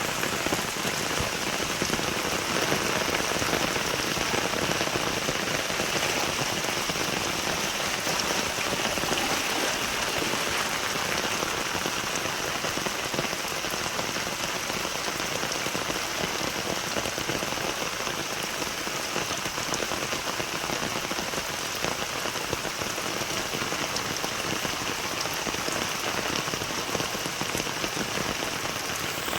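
Steady rain falling, a dense even patter of drops on the ground and surfaces.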